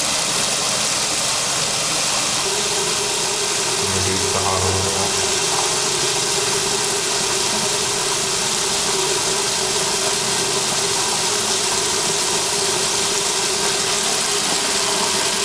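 Water running from a two-handle bathroom faucet with hot and cold each opened a quarter turn, a steady rush into the sink basin. A steady tone joins the rush a couple of seconds in.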